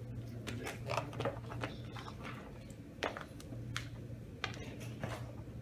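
Irregular small clicks and taps from handling a Kinder Surprise egg: the plastic toy capsule and bits of broken chocolate shell knocking against each other and the wooden tabletop, over a steady low hum.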